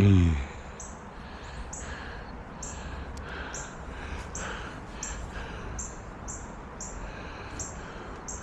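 A short low plop at the very start as a released fish drops back into the water, then a bird calling over and over, a little faster than once a second.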